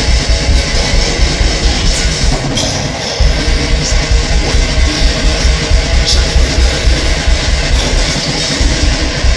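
Heavy metal track: dense distorted electric guitar over fast drums, with cymbal crashes about two and a half seconds in and again around six seconds.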